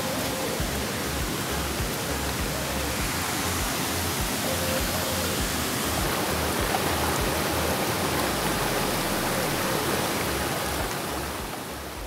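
Steady rushing noise of a waterfall, water pouring over a rock ledge into a pool, with faint music underneath; it eases off slightly near the end.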